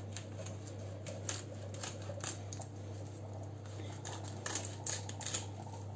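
Kitchen knife cutting a whitefish fillet away from the backbone: faint, irregular scratchy ticks as the blade passes over the bones.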